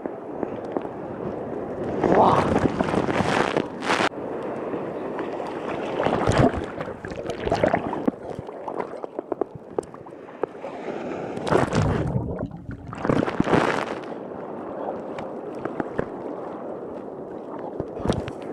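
Surf water sloshing and gurgling around a camera held in the water, with several loud rushing surges as waves wash over it.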